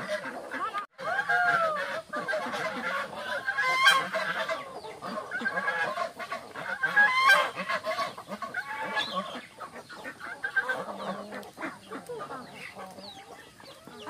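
A mixed farmyard flock of chickens and ducks calling over one another: many overlapping clucks and honking quacks, with a brief break about a second in.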